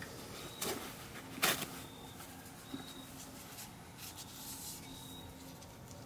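Quiet handling noise from a hand pump on a quart gear lube bottle being worked slowly to fill an outboard's lower gearcase, with two soft knocks, the second about a second and a half in and the louder.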